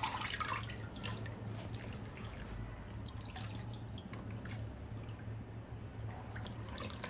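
Water dripping and splashing as handfuls of wet, thinly sliced potato are lifted out of rinse water and dropped into a pan of hot water, mostly in the first second, then a few scattered drips. A steady low hum runs underneath.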